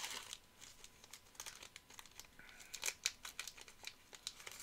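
Wrapper of a 2020 Topps Finest WWE trading-card pack being torn open and crinkled, in quiet, irregular crackles.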